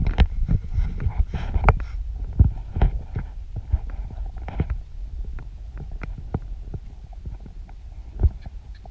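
Low wind rumble on a camera carried on a walking horse, with irregular soft thumps and knocks from its steps on sand, busiest in the first couple of seconds.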